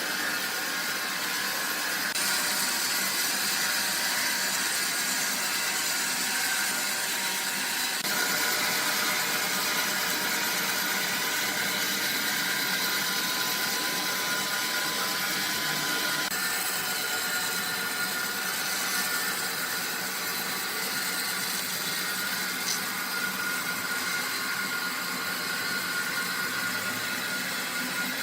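Sawmill machinery running steadily, a loud, high-pitched whining hiss with faint steady tones, shifting in character a few times.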